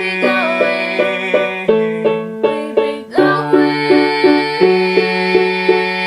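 Instrumental break of a song played on acoustic plucked strings: an even pattern of picked notes, about three a second, with the chords changing a few times.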